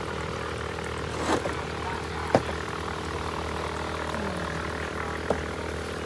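Steady motor hum with water bubbling from aerator hoses in tanks of live crabs and lobsters. Two short sharp clicks come about two and five seconds in.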